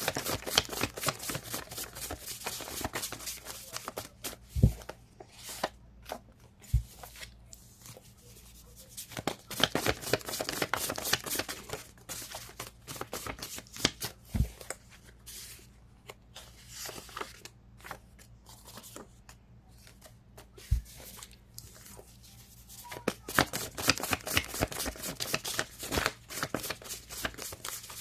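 A deck of cards being shuffled by hand in three spells of rapid flicking and riffling, with a few soft knocks in between as the deck is tapped or set down.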